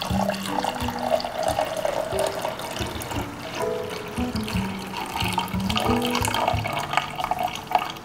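Water pouring from a glass carafe into a drip coffee maker's water reservoir, a rushing splash that is strongest in the first couple of seconds, over background music.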